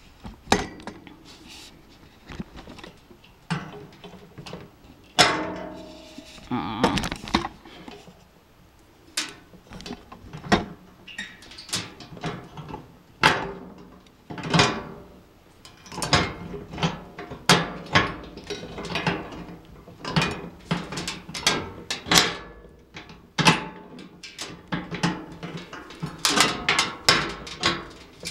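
Metal mesh cart baskets and steel frame parts clanking and knocking together as they are handled and fitted, in irregular clinks and knocks, some ringing briefly.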